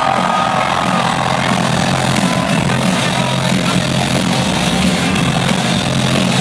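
Loud live electronic dance music over a festival sound system: a heavy bass drop lands right at the start and a thick, steady bass line runs on under dense high-end noise, as the rising build-up sounds fade out about a second in.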